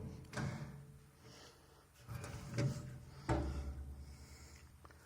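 Sheet-metal cover of a Bamford baler's twine box being handled, giving a few clunks and knocks; the loudest clunk comes about three seconds in, with a low rumble dying away after it.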